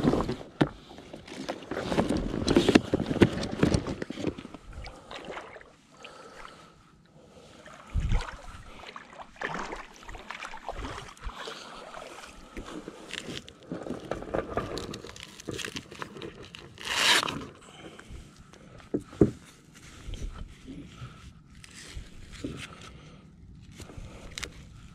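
Gear being handled on an inflatable paddleboard: a dry bag's fabric and straps rustling and scraping as it is tied down to the deck bungees, with scattered knocks on the board. A short, loud rasp comes about two-thirds of the way through.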